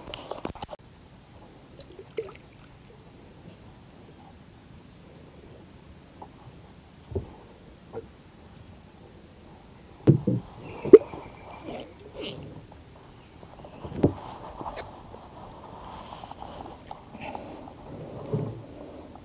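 Steady high-pitched insect chorus, with a few short knocks about ten seconds in and again near fourteen seconds from fishing gear being handled in the wooden boat.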